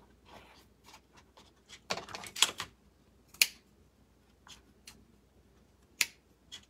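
Small clicks, taps and crinkles of craft pieces and a paper cupcake cup being handled on a tabletop, with a denser crackling patch about two seconds in and sharp single clicks at about three and a half and six seconds.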